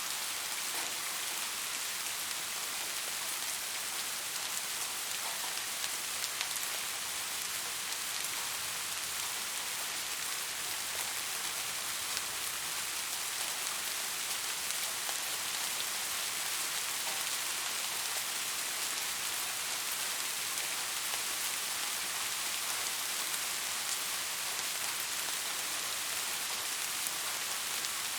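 Steady rain falling, an even hiss of many small raindrops landing, with fine scattered drop ticks.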